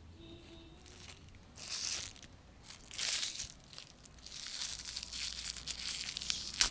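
Aluminium foil wrappers crinkling as hands rummage through a pile of foil-wrapped packets and then unwrap one: two short rustles, then a longer run of crinkling in the last couple of seconds, ending in one sharp crackle.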